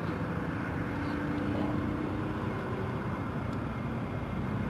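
Steady low rumble of a vehicle engine, with a faint, even hum running through it.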